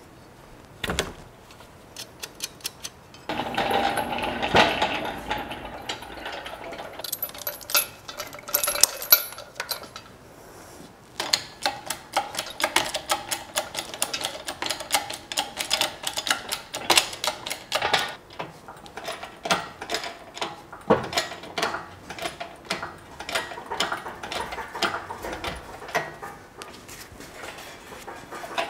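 Hand tools and metal parts on an old pickup's engine clicking and rattling in quick bursts while the engine is unhooked for removal.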